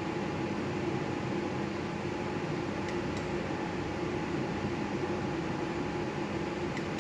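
Steady fan-like hum with a few held tones, broken by faint clicks: a quick pair about three seconds in and one more near the end, in time with each spin of a video slot machine.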